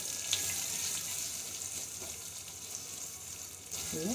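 Sliced onions sizzling in hot oil in a stainless-steel kadhai as they are stirred with a silicone spatula: a steady, high-pitched sizzle. The gas is off, so the onions are frying on the pan's own heat.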